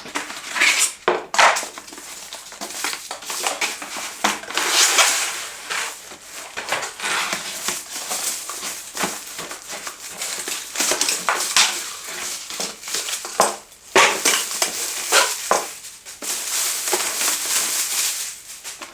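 A cardboard box and its packaging being opened and unpacked by hand: continuous rustling and crinkling with scraping and frequent short knocks.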